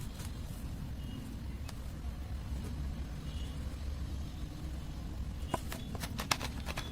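Steady low background rumble, with a few light clicks and taps about five and a half to six and a half seconds in.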